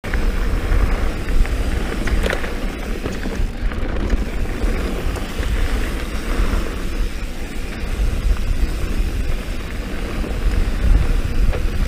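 Wind buffeting an action camera's microphone as a mountain bike rolls down a dirt singletrack, a steady low rumble with tyre noise and a few sharp clicks from the bike.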